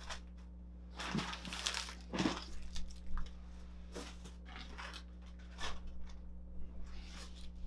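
Plastic packaging bags crinkling and rustling in irregular short bursts as bagged accessories are handled and lifted out of a foam packing tray. The busiest stretch is in the first few seconds.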